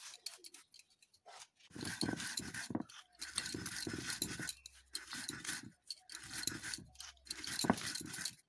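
Stone roller scraping back and forth over biscuit crumbs on a flat stone grinding slab (shil-nora), grinding cream biscuits to powder: a run of gritty strokes, each about a second long with short pauses between.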